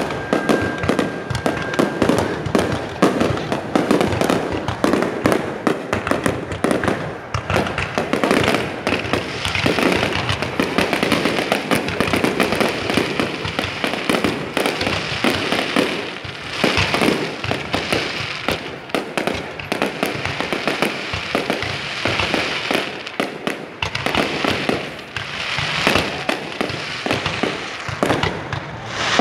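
Aerial fireworks display: a continuous rapid barrage of shells launching and bursting. A dense hissing crackle joins in from about nine seconds in.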